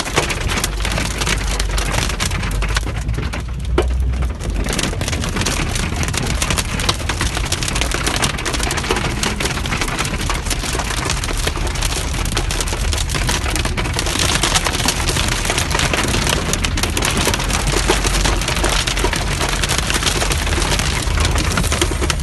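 Hailstones and heavy rain hitting a car's windshield and body, heard from inside the car: a dense, unbroken clatter of small impacts.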